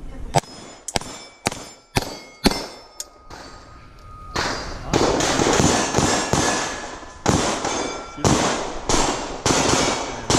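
Staccato XL 2011 pistol firing a string of quick shots at steel plates, each hit followed by the ringing clang of the steel. Five shots come about half a second apart, then after a short pause a faster run of shots follows to the end.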